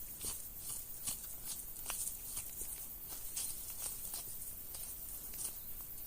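Scattered small clicks and rustles, one or two a second, from fallow deer meat and gear being handled and stuffed into a pack.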